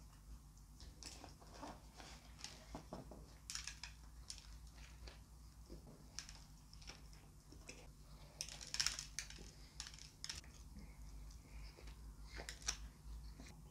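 Quiet, scattered crackles and clicks of a burger being handled in its paper wrapper, bitten and chewed close to a microphone, with a louder cluster of crackles about nine seconds in.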